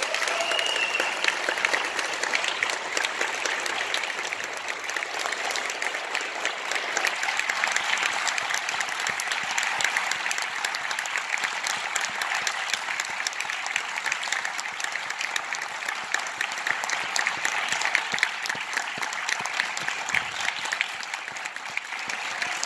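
An audience applauding, a dense steady clapping that holds at an even level throughout.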